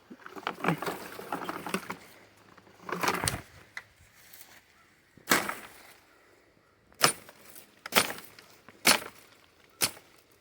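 A wakizashi sword chopping into wood and brush: rustling and crackling at first, then five sharp chops about a second apart in the second half.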